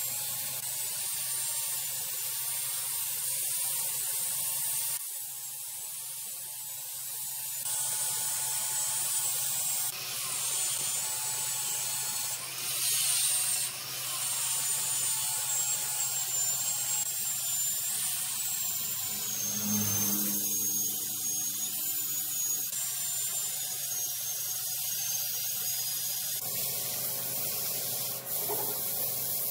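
Large wood lathe running while the spinning wood is worked: a steady high rubbing hiss over a low hum, with a thin high whine that wavers and drifts down in pitch partway through.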